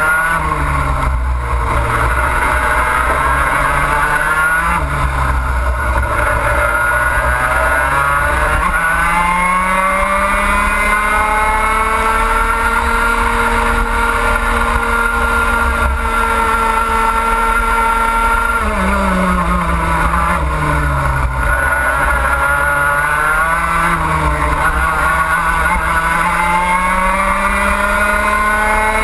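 Racing kart's two-stroke engine, heard from onboard, revving up and down through corners, then climbing to a long high steady note down the straight before dropping sharply under braking about two-thirds of the way in, and rising and falling again through the following turns. Wind rumbles on the microphone throughout.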